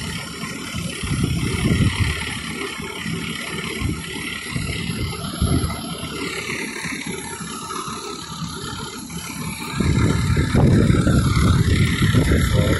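A vehicle engine running with a low rumble. It eases off at the start and grows louder again about ten seconds in.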